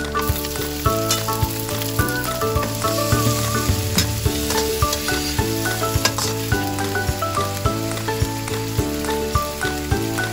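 Chicken wings sizzling in hot oil in a wok, with the clicks and scrapes of a metal spatula stirring them. Background music plays throughout.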